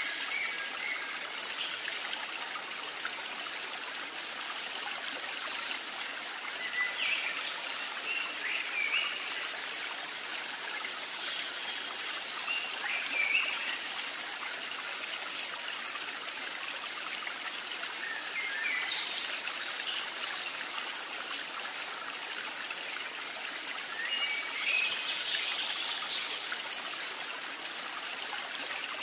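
Steady trickling-stream water ambience, with short high chirps every few seconds.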